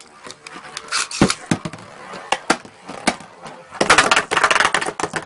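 Two Beyblade metal-wheel spinning tops battling in a plastic stadium: scattered sharp clicks and clacks as they strike each other and the stadium walls, building into a dense rattling clatter about four seconds in.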